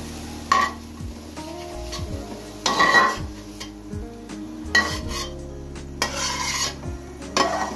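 A spoon scraping and clinking against a metal karahi as fried onion and tomato are scooped out onto a plate, in several short strokes, the loudest about three seconds in.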